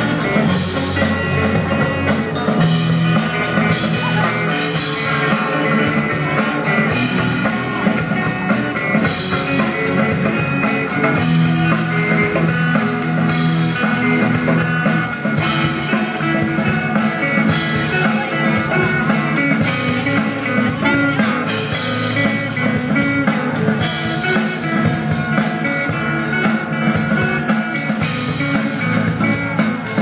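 Live band playing rock music: electric and acoustic guitars over a drum kit, amplified through a PA.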